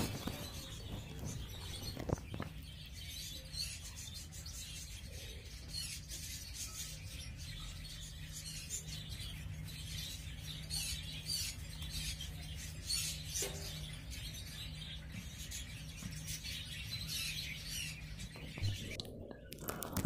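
Small cage birds of an aviary chirping: many quick, high calls scattered throughout. A faint steady low hum runs underneath.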